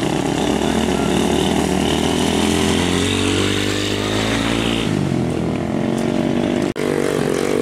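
Small motorcycle engine revving hard, its pitch dropping about five seconds in. A brief break in the sound comes a little before the end.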